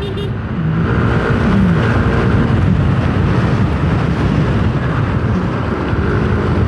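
Yamaha Aerox 155 scooter's single-cylinder engine running steadily while riding, under a heavy, steady wind rumble on the helmet-mounted microphone.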